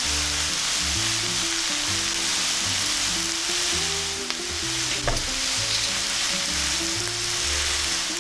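Food frying in oil in a pan, a steady sizzle, over background music with slow held notes. A single sharp tap about five seconds in.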